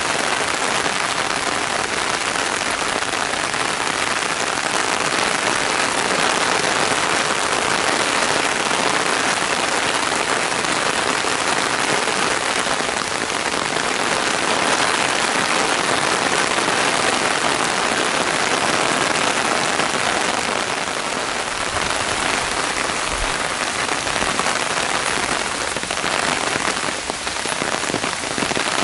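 Heavy rain pouring down onto a shallow pond and leafy plants: a dense, steady hiss of countless drops hitting water and leaves.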